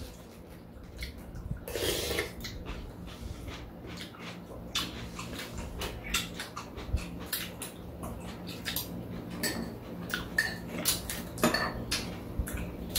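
Metal spoons and chopsticks clicking and scraping against ceramic and stainless-steel bowls in irregular, scattered taps, with eating noises as spoonfuls of cold soup are taken. A longer, noisier sound comes about two seconds in.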